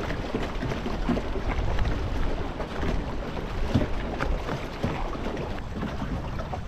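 Water washing along the hull of a small sailing dinghy under way, with irregular small slaps and splashes of chop against the bow.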